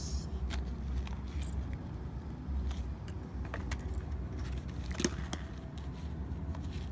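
Light clicks and rattles of small hobby parts being handled on a cluttered table, with one sharper click about five seconds in, over a steady low rumble.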